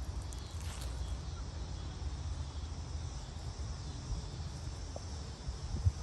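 Open-air ambience: a steady low rumble with a faint high insect hiss over it, and one sharp thump near the end.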